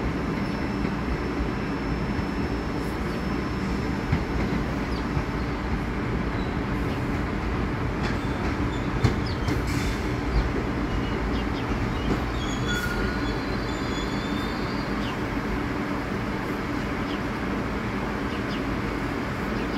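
An R62A subway train on the 1 line approaches the station along the tracks with a steady rumble of wheels on rail. A few sharp clacks come over the rail joints, and faint, brief wheel squeals are heard past the middle.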